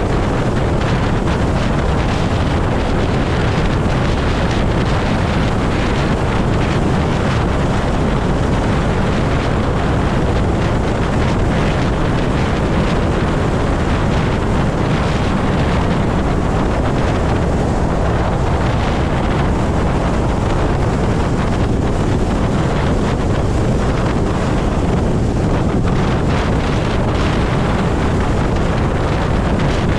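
Steady, loud wind rush buffeting the microphone on a motorcycle at highway speed, about 70 mph, mixed with road noise. There is no engine note: the Zero is an electric motorcycle.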